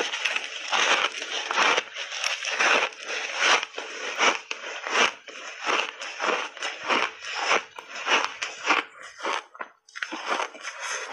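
Refrozen ice chunks coated in matcha and milk powder crunching as they are bitten and chewed: rapid, irregular crunches, with one short pause near the end.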